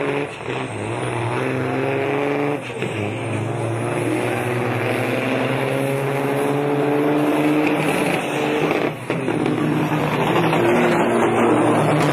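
Diesel engine of a loaded tractor-trailer truck accelerating hard, its pitch climbing slowly through each gear. Brief dips mark gear changes near the start, about three seconds in and around nine seconds in.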